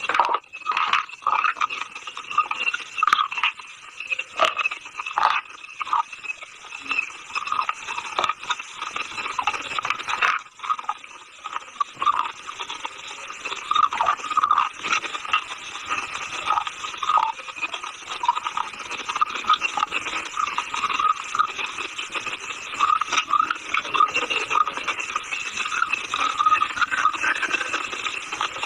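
Close-up crunching and chewing of a hard, dry earthy material such as edible chalk or baked clay: a dense run of short crackling crunches, with sharper separate bites in the first few seconds.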